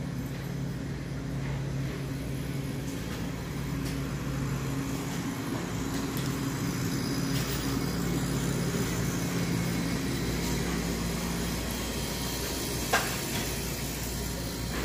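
Steady low mechanical hum with a few droning tones, as from an idling engine or a ventilation unit, and one sharp click near the end.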